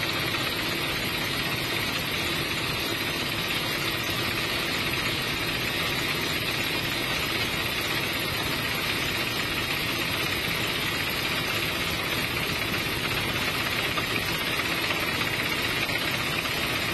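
Helicopter in flight, heard from on board: a steady drone of engine and rotor noise that does not change.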